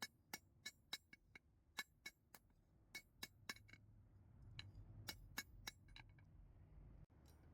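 Blacksmith's hammer striking steel on an anvil in a run of light, ringing blows, about two to three a second at an uneven pace, as leaf stems are thinned down. A low hum sits underneath and grows louder about halfway through.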